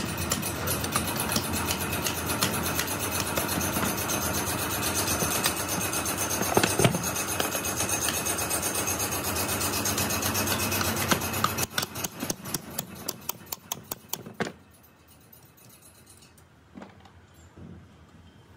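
Metal hand-tool work on a cast-iron pump housing: a steady, dense rasping with very fast ticking, then a run of sharp clicks about four or five a second that thin out and stop. After that it goes quieter, with a few light knocks of metal parts.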